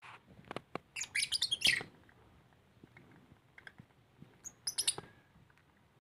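Masked lovebird giving quick flurries of high, sharp chirps: one about a second in and a shorter one around the five-second mark, with a few single chirps between.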